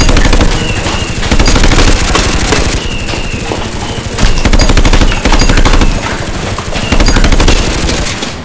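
Bursts of loud, rapid automatic gunfire, several volleys with short lulls between them.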